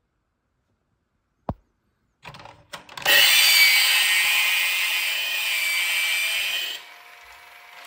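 A sharp click, then a small electric motor and gearbox whirring loudly, dropping suddenly to a quieter whir near the end. This is plausibly the battery-powered motor of a Zoids King Gojulas model being switched on and running.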